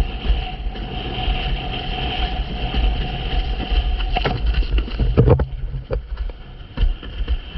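Wind buffeting the microphone of an action camera mounted on a planing windsurf board, over the rush of water under the hull, with a few sharp knocks in the second half as the board slaps over chop.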